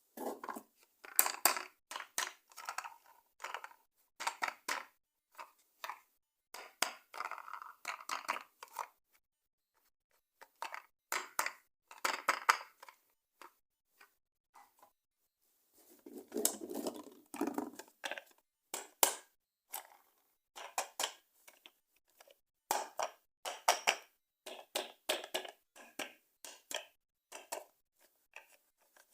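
Toys and their plastic packaging being handled and unboxed: crackly crinkling and sharp clicks in irregular clusters, with a couple of brief pauses.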